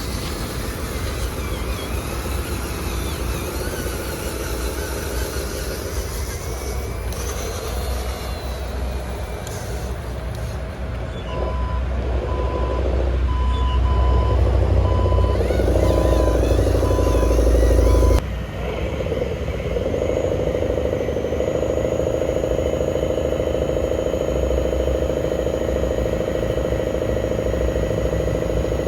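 Diesel dump-truck engine sound running steadily, with a series of reversing beeps in the middle while the rumble grows louder. It changes abruptly about eighteen seconds in, then carries on steady.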